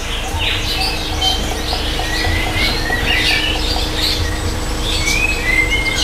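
Many birds chirping and calling over one another in short, overlapping phrases, with a steady low hum underneath.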